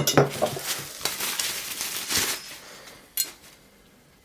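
Stainless steel garden hand tools with wooden handles clinking and scraping against each other as they are handled, for about two and a half seconds, then one sharp knock a little after three seconds in.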